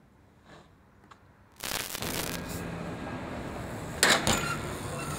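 Near silence at first; about a second and a half in, city street noise with a steady low hum starts abruptly. About four seconds in comes a short, loud, sharp clatter with some ringing.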